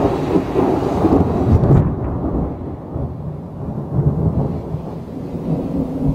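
Rolling thunder from a close thunderstorm: a deep rumble, loudest over the first two seconds, then easing to a lower, steadier rumble. A lighter hiss above it cuts off about two seconds in.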